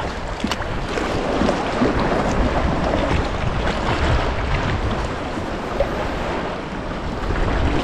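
Sea water lapping and splashing against the kayak and the cliff rocks, with a scatter of short, sharp splashes. Wind rumbles on the microphone throughout.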